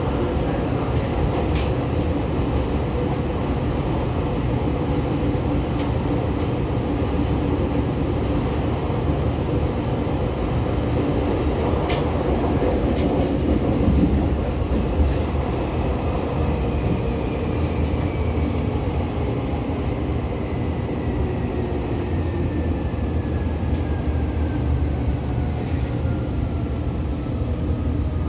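Seibu 2000 series electric commuter train heard from inside the car while running, with a steady rumble of wheels on rail and a few sharp clicks. The running sound carries the knock of a flat spot worn on a wheel. A whine falls steadily in pitch over the second half as the train slows.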